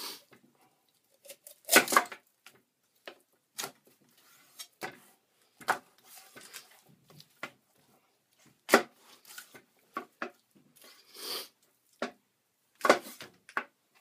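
Large knife cutting up a whole raw chicken on a wooden butcher block: irregular sharp knocks as the blade chops through joints and bone and strikes the board, with a short scraping slice near the end and quiet handling of the meat between.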